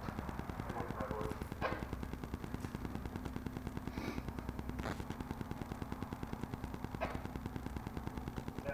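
A machine running with a steady, very rapid pulsing, with a few sharp clicks over it.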